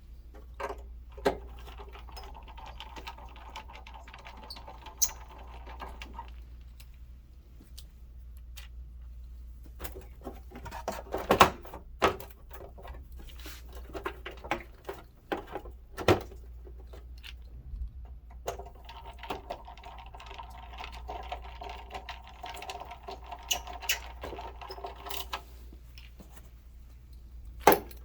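Clicks, knocks and clatter of tools and plastic and metal parts being handled during scooter reassembly, with two stretches of a steady mechanical whir lasting several seconds each, one a couple of seconds in and one past the middle.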